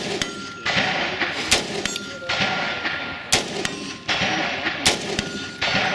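Rifle shots fired one at a time, about four of them roughly one and a half to two seconds apart, each followed by a rolling echo as it dies away.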